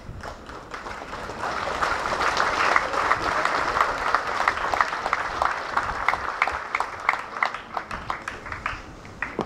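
Crowd applauding. The applause swells about a second and a half in, then thins to scattered separate claps toward the end.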